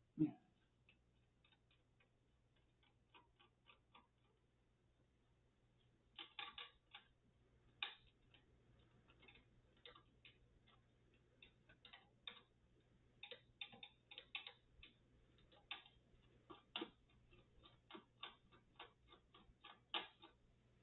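A low knock just after the start, then faint, irregular small clicks and ticks of a small screwdriver working the screws of a motherboard's M.2 heatsink cover.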